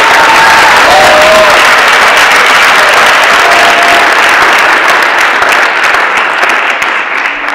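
A large audience applauding, loud and sustained, dying away near the end.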